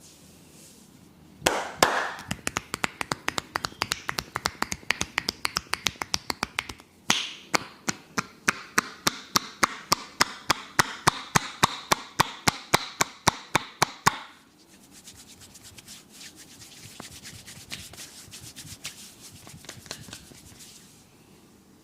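Massage tapping: a masseur's hands striking in a quick, even rhythm of about four or five strokes a second, with a brief break about halfway. The tapping then stops and gives way to softer rubbing.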